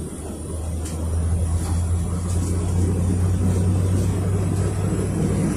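Inside a PAZ-32054 bus under way, its ZMZ-5234 V8 petrol engine drones low, growing louder over the first two or three seconds and then holding steady.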